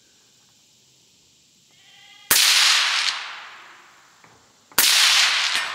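Two shots from a suppressed AR-style rifle, about two and a half seconds apart, each a sharp crack followed by a rolling tail that dies away over about a second.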